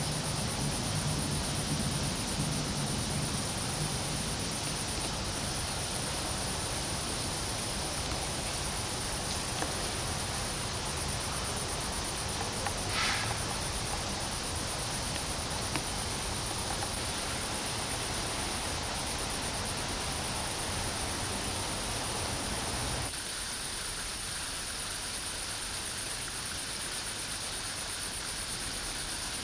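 Steady ambient background noise with a constant high-pitched whine, like insects. One brief chirp comes about halfway through, and the low rumble in the background drops away about two-thirds of the way in.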